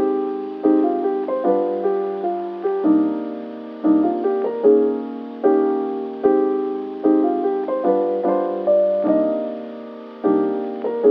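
Background music: a soft, gentle piano melody, notes struck one after another and each fading away.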